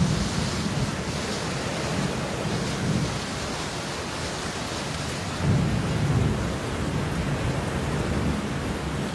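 Steady rain with low rolling thunder. The thunder swells near the start and more strongly about halfway through.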